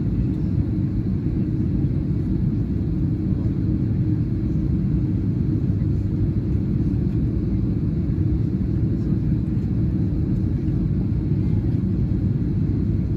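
Steady low rumble inside an Airbus A330-300's cabin while the airliner taxis slowly on the ground, its engines at idle.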